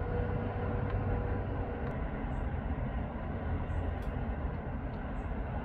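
Steady road traffic noise from a busy multi-lane junction, cars and vans passing with a continuous low rumble. A steady hum sits over it for the first two seconds.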